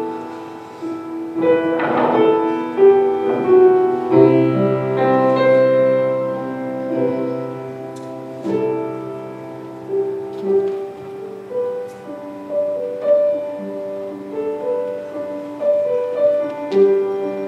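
Slow piano music with long held chords; a low bass note holds for several seconds from about four seconds in.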